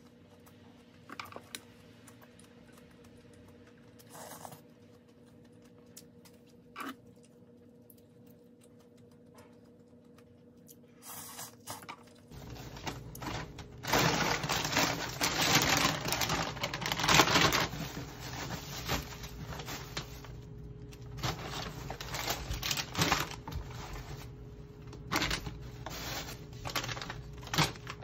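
Groceries being unpacked from a canvas tote bag: plastic bags and packaging rustling and crinkling, loudest for a few seconds soon after the start of the unpacking, then in short bouts as items are set down on the counter. Before that, a few faint clicks.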